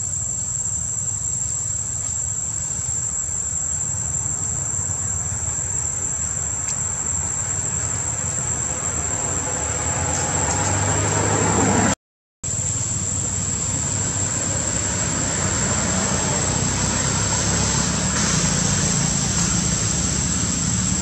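Outdoor ambience: a steady, high-pitched insect drone over a low rumble that swells and fades. The sound cuts out completely for a moment about twelve seconds in.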